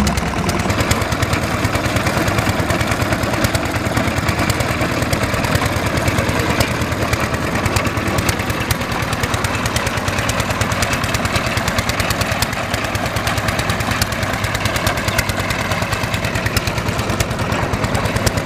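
Small diesel engine running steadily, driving the pump of a tubewell boring rig, with a rapid, even run of exhaust beats.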